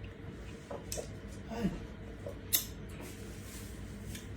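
Quiet eating at a shared meal of fufu: faint scattered clicks and taps of hands and dishes, with one sharper click about two and a half seconds in.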